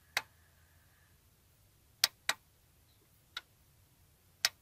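Push-button on a First Option car stereo's faceplate clicking as it is pressed repeatedly to step through the source modes: five short, sharp clicks, two of them close together about two seconds in.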